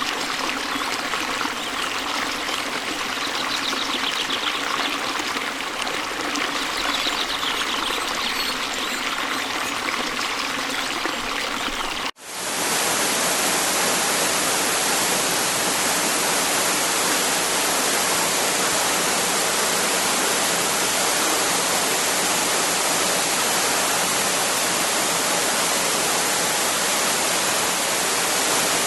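Waterfall water rushing and splashing over rocks. About twelve seconds in it cuts abruptly to a steadier, slightly louder, even rush of falling water.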